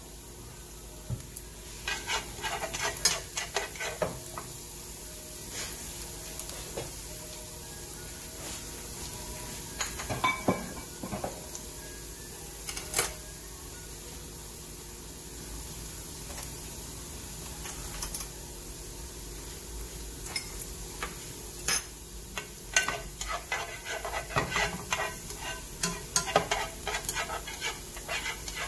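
Minced garlic sizzling in oil in a nonstick frying pan, a steady hiss. Now and then come clusters of light taps and scrapes as a utensil stirs it around the pan.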